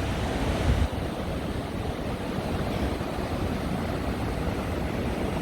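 Snoqualmie Falls, a large waterfall, rushing steadily, with some wind on the microphone.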